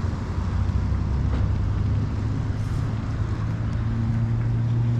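Honda CB500X's parallel-twin engine running while riding, with wind noise; the engine note rises a little about a second and a half in, then holds steady.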